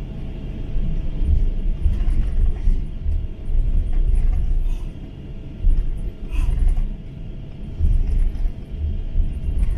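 Airbus A350-900 airliner heard from inside the cabin: an uneven low rumble that swells and dips every second or so, with light rattles and ticks from the cabin fittings.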